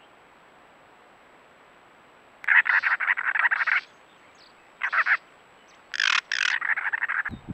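Cactus wren singing its harsh, rasping chatter: three runs of quick grating notes, the first starting a couple of seconds in, the second brief and the last the longest.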